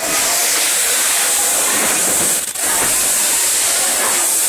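Steady hissing noise of factory machinery around a running heat-transfer cup printing machine, with a brief drop in level about two and a half seconds in.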